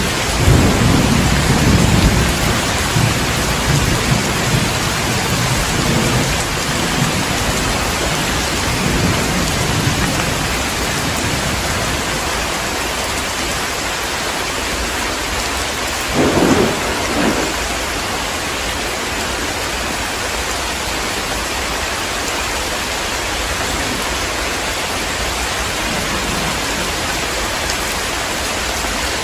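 Heavy rain falling steadily in a thunderstorm. A low rolling thunder rumble runs through the first ten seconds or so and dies away, and a brief louder burst comes about sixteen seconds in.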